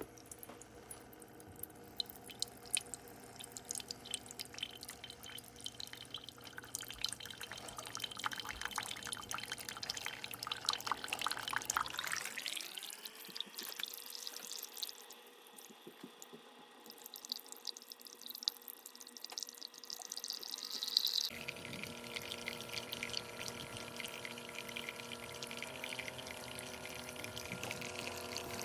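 Keurig K-Iced single-serve coffee maker dispensing: liquid dripping and trickling into a cup, with many fine drips over a steady hum.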